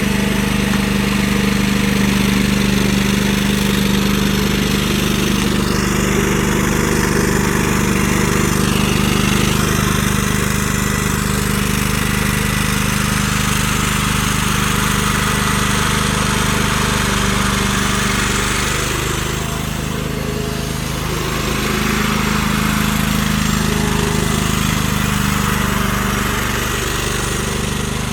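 The small engine of a towable mini backhoe running steadily, with a faint high whine joining in for a few seconds and a brief change in tone about two-thirds of the way through.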